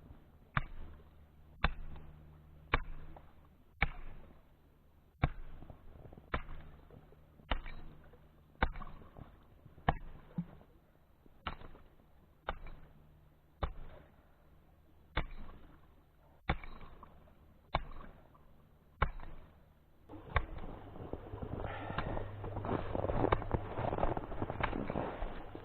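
Axe chopping into thick creek ice, about sixteen sharp strokes at a steady pace of roughly one a second. A louder, continuous rough noise takes over for the last five seconds.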